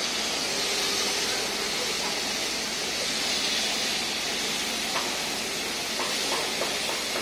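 Fire hose jet spraying water hard onto a wet concrete floor: a steady, even hiss of the stream and its spray.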